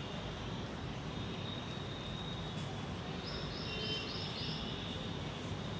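Steady outdoor background noise, with a quick run of about five short high chirps about three and a half seconds in.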